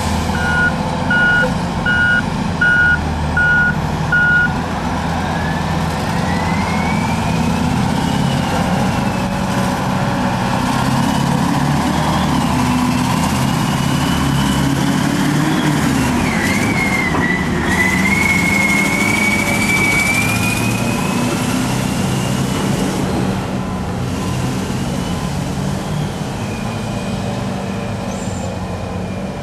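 Heavy diesel earthmoving machines, a Volvo motor grader and a Caterpillar 631E wheel tractor-scraper, running under load. A reversing alarm beeps about once a second for the first four seconds or so, then stops. After that, a drivetrain whine rises and falls in pitch over the engine sound as the machines move.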